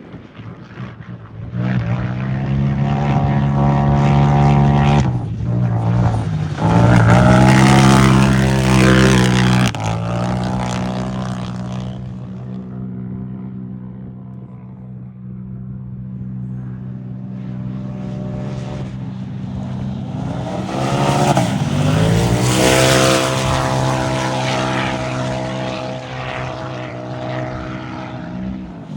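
Turbocharged racing UTVs going past at speed, each engine holding a steady high pitch. One loud pass fills the first ten seconds, then the sound eases off before a second pass builds, dips briefly in pitch and peaks about three-quarters through.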